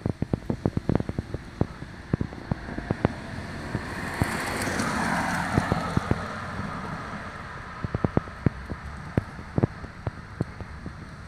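Outdoor background noise on a phone microphone: many sharp crackling clicks, and a broad rushing swell that builds from about four seconds in, peaks around five and fades by six and a half.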